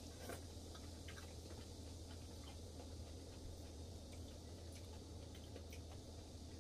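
A person chewing a mouthful of soup vegetables, heard as faint, irregular clicks over a steady low hum.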